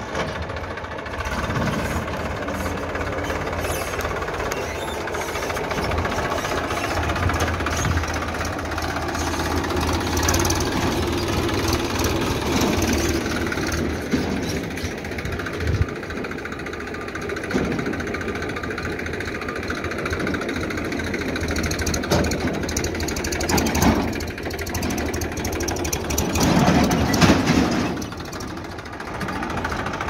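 Diesel engines of a JCB backhoe loader and a Massey Ferguson 241 DI tractor running, with scattered short knocks and a louder stretch near the end.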